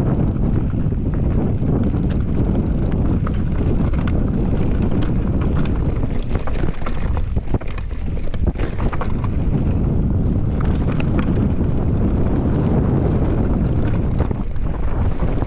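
Wind buffeting the camera microphone during a fast mountain bike descent on a dirt trail, over the rumble of knobby tyres on the ground. Frequent sharp clicks and knocks come from the full-suspension bike rattling over roots and bumps.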